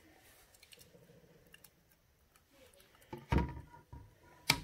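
A stainless steel bowl and a spoon knocking against a mug as mashed strawberries are scooped into it. A few faint ticks come first, then louder knocks about three seconds in, and one sharp clink near the end.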